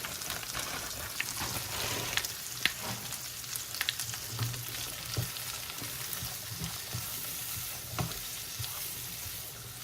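Frozen mixed vegetables sizzling and frying in butter in a hot pan, a steady hiss with scattered small clicks and crackles.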